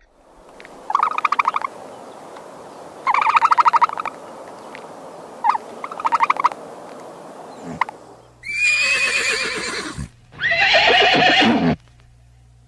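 Horse whinnying: three short quavering calls, then two longer, louder whinnies near the end, the last falling in pitch.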